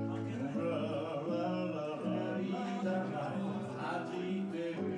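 A man singing a slow song while playing an acoustic guitar, with long held notes over the guitar chords.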